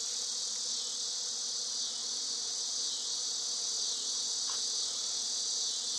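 A honeybee swarm buzzing in the air all around: a faint low hum under a steady, high-pitched insect drone.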